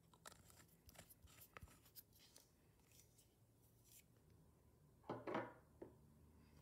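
Faint sticky clicks and crackles of clear slime being handled, with one louder, longer rustle just after five seconds.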